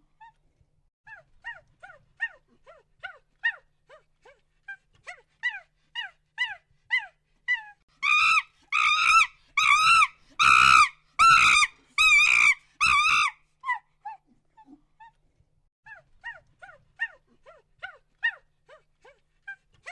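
A puppy whimpering and yelping: a run of short, high, falling whines about two a second, with a louder and longer group of cries in the middle.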